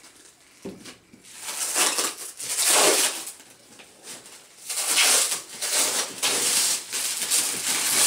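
Green plastic wrap crinkling and crackling as it is pulled and peeled off a case by hand, in two long stretches after a quiet first second.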